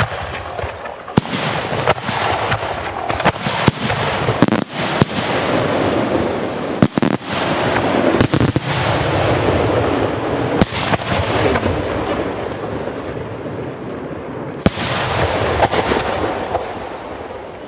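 Aerial fireworks shells bursting overhead at close range: a dense, continuous crackle with sharp bangs scattered all through, easing off near the end.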